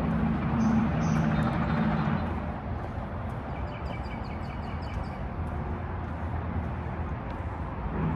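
Outdoor traffic noise: a vehicle's engine hum, loudest in the first two seconds and then fading, over a steady haze, with a few quick high chirps from a small bird around the middle.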